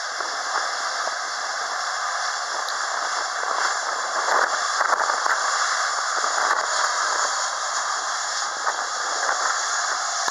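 Boeing 737-800's CFM56-7B jet engines at taxi power as the airliner turns onto the runway: a steady hiss and whine that swells slightly around the middle.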